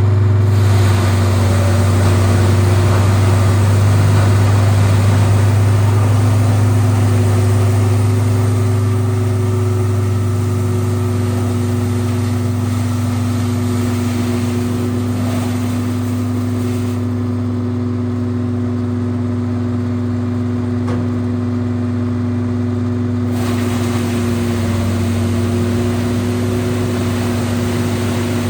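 Peterson 4310B drum wood chipper running steadily, its large engine giving an even, deep drone with a low hum.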